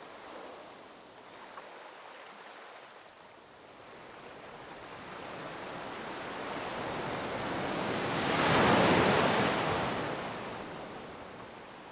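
Ocean surf: the wash of the sea swells into one loud wave breaking about nine seconds in, then falls back to a softer wash.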